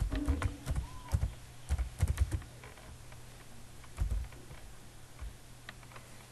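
Computer keyboard keys being typed in a quick run of clicks for the first two and a half seconds, then one heavier thump about four seconds in and a few light ticks, over a low steady hum.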